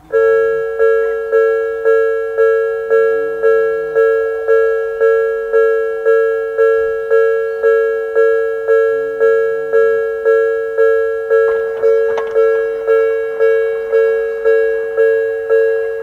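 Japanese railway level-crossing warning bell, the electronic Odakyu-type tone, starting abruptly and ringing at a steady rate of about two dings a second. It signals an approaching train as the crossing lights flash and the barriers come down.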